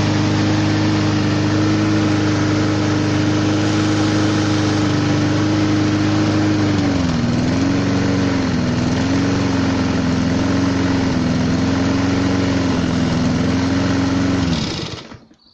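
Mountfield RV150 mower's single-cylinder four-stroke engine running steadily. About halfway through its speed drops a little and then wavers up and down unevenly, and near the end the engine is shut off and runs down to silence.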